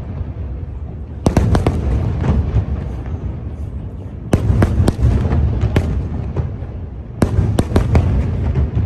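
Aerial fireworks display: three volleys of shell bursts about three seconds apart, each a quick cluster of sharp cracks and bangs, with a deep rumble going on between them.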